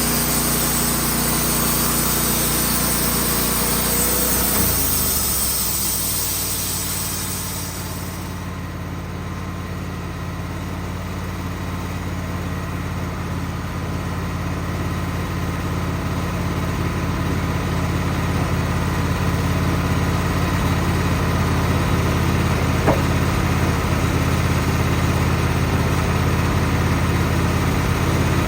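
Wood-Mizer portable band sawmill running. About five seconds in the engine slows to a lower speed and a high hiss dies away within a few seconds; the engine then runs steadily, slowly getting louder.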